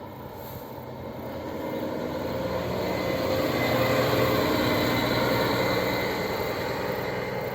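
Diesel engine of a sightseeing coach driving past, growing louder to a peak about four seconds in and then fading as it moves away.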